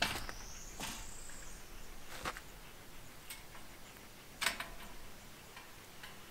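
Four separate sharp knocks or clicks, the loudest about four and a half seconds in, with a faint high whistle that rises and then falls once just after the start.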